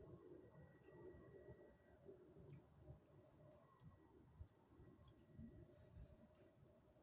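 Faint, steady high-pitched insect trill, typical of crickets, running continuously over a low distant rumble.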